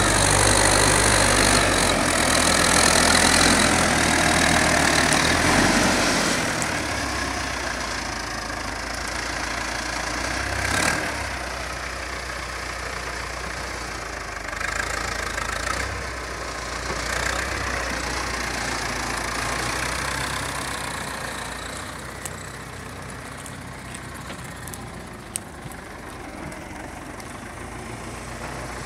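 IMT 587 tractor's diesel engine running steadily under load while pulling a two-furrow plough through the soil. It is loudest in the first few seconds and then grows gradually quieter.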